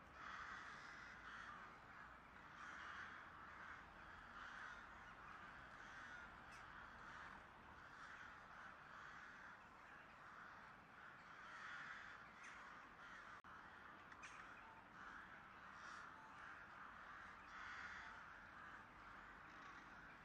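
Faint crows cawing over and over.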